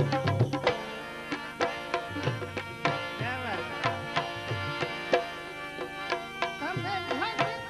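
Instrumental passage of Gujarati devotional folk music (santvani bhajan): tabla strokes in a quick rhythm over sustained melodic tones, with a couple of short sliding melodic phrases.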